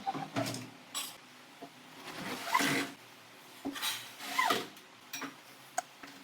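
Handling noise from wooden wardrobe parts being worked on during assembly: scattered knocks and taps, with two longer scraping rubs, about two and four seconds in.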